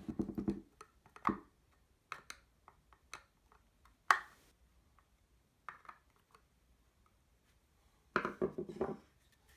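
Hand screwdriver driving screws into a wooden prop-rifle stock: quiet scattered clicks and taps of the tool working the screws, with a sharper knock about four seconds in and a short run of knocks near the end.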